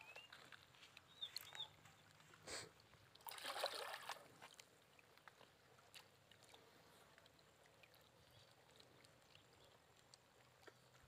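Faint water splashing and sloshing from a hooked catla near the bank, loudest about three and a half seconds in. Short high bird chirps come in the first second and a half.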